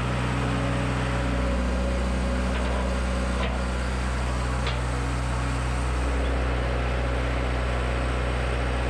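A large engine running steadily at a constant speed, with a deep, even hum and a couple of faint knocks in the middle.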